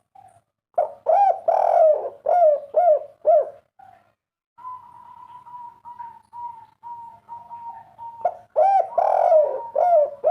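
Spotted dove (tekukur) singing the 'kuk 3' coo song: two phrases of several quick, hollow coos each, one about a second in and another near the end. A fainter steady high tone sounds between the phrases.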